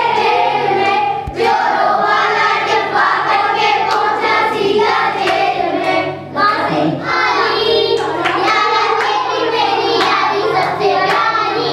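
A group of girls singing a Hindi song together, clapping their hands along in a steady beat.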